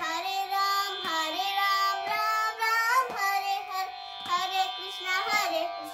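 A young girl singing a devotional Krishna bhajan in a melodic, gliding line, over a steady drone accompaniment with a low percussive beat about once a second.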